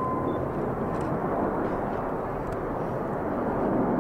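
Jet noise from a formation of BAE Hawk jets flying past: a steady rushing roar that grows a little louder toward the end.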